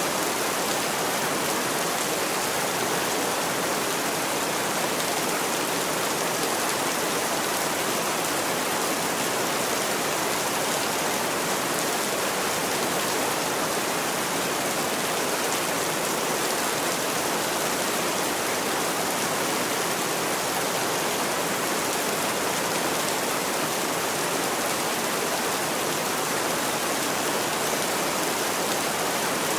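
Heavy rain falling steadily: an even, unbroken hiss with no thunder claps.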